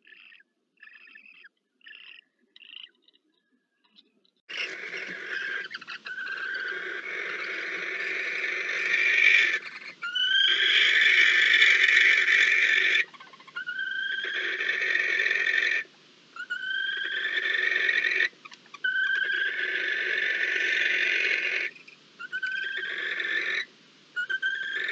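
Barn owls giving long, harsh hissing screeches, each two to three seconds long and opening with a short rising note, repeated with brief gaps from about four seconds in. Before that come a few faint short chirps.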